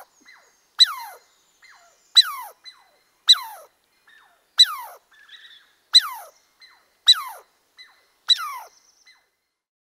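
An animal's call repeated seven times at an even pace, about once every second and a quarter. Each call is short and high and falls steeply in pitch, with fainter calls between them.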